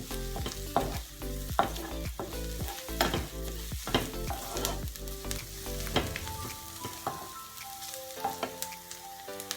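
Onion and garlic sizzling in hot oil in a pan while being stirred, with the utensil knocking against the pan about once a second.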